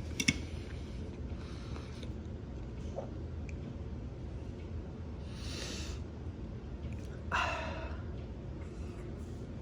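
A man eating, breathing through his nose: a short hissing breath about five seconds in and a louder breath about seven and a half seconds in, over a low steady hum.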